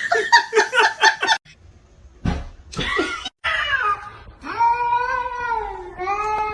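Cat meowing: a quick run of short, stuttering calls, then long drawn-out yowls of about a second and a half each.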